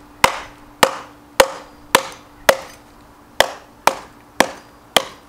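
One-piece steel Estwing hatchet chopping into a thick log: nine sharp blows at about two a second, with a short pause around the middle.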